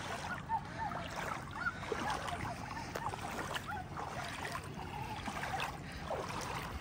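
Feet wading through shallow water: irregular sloshing and splashing with small gurgles.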